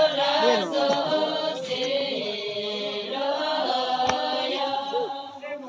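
Buddhist chanting: a melodic recitation on held notes that glide from one pitch to the next, with a sharp click about four seconds in.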